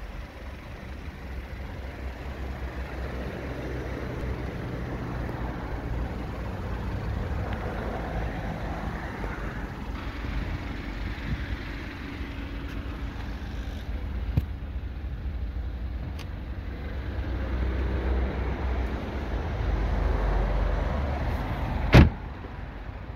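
Steady, low outdoor rumble of wind and distant traffic that swells and fades, with a small click partway through and one loud, sharp bang near the end.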